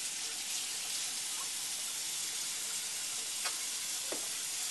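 Steady hissing noise, with two faint clicks in the second half.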